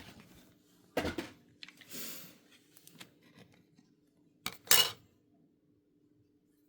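Hard plastic card holders and packaging handled at a table: a few sharp clicks and clatters with a short rustling slide about two seconds in, and the loudest clatter near the five-second mark.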